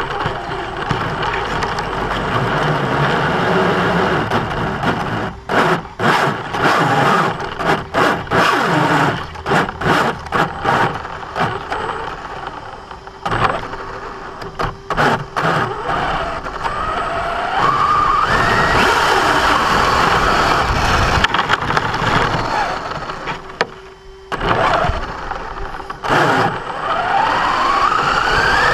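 Electric 1/10 RC truck drivetrain whining and grinding in short stop-start throttle bursts, then in longer pulls with rising whines. The grinding comes only under acceleration and remains after the gear mesh was reset, a fault the owner cannot trace on the new truck.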